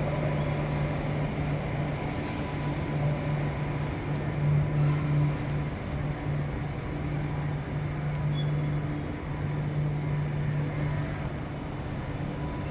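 Interior running noise of a Koleje Mazowieckie electric regional train: a steady low hum with brief dropouts over an even rumble, and a faint high whine.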